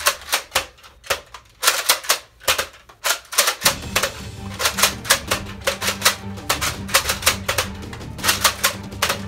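Rapid, uneven sharp clicks and clacks. About three and a half seconds in, a steady low bass tone joins them, as in background music.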